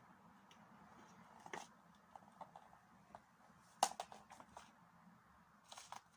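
Quiet scattered taps, scratches and rustles of a kitten at play, with one sharper knock about four seconds in.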